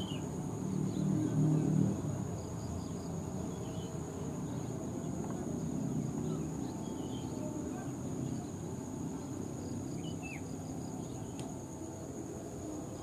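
Steady high-pitched drone of insects over a low outdoor rumble that swells briefly about a second in, with a few short chirps scattered through.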